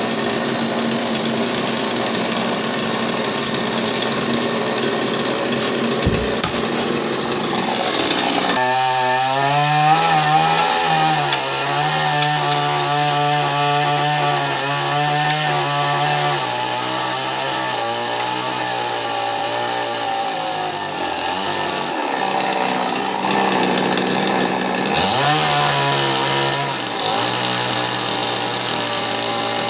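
Chainsaw running and cutting a coconut tree trunk. About eight seconds in, its engine note comes through clearly and keeps rising and falling as the saw works, with a sharp rev-up near the end.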